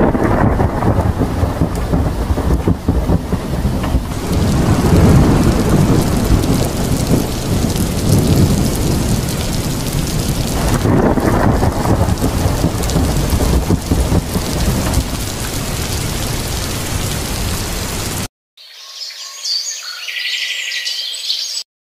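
Heavy rain with rolling thunder, swelling louder twice, then cutting off suddenly near the end.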